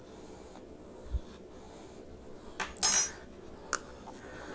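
Kitchen utensils clattering: a soft knock about a second in, then a loud, bright clink of a metal spoon on crockery that rings briefly, and a small click a moment later.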